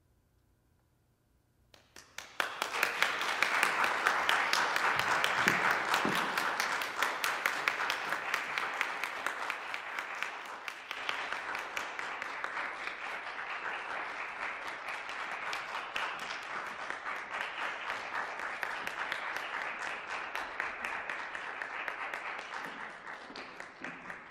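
Audience applauding at the end of a piece: a hush, then clapping breaks out suddenly about two seconds in, is loudest for the first few seconds, keeps on steadily, and tapers off near the end.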